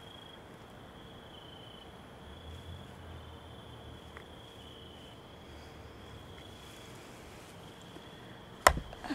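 Crickets trilling steadily in the night air, one thin high unbroken tone that swells and fades a little every second or so. Near the end, a single sharp click cuts through.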